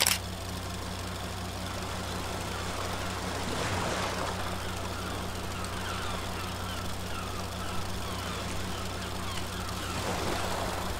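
Outdoor city ambience: a steady low hum of distant traffic under an even haze of noise, with faint high chirps scattered through it.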